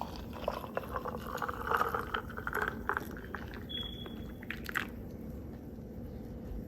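Fresh juice poured into a glass of ice: liquid splashing with ice clinking and small knocks against the glass, settling after about five seconds.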